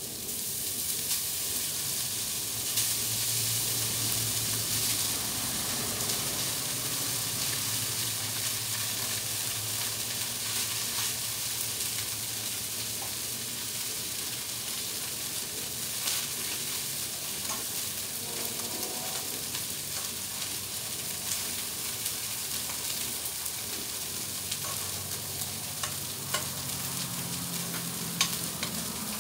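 Meat and vegetables sizzling steadily on a Blackstone propane flat-top griddle as cooked rice is spooned onto it, with scattered light clicks and scrapes of a metal spoon against the steel pot.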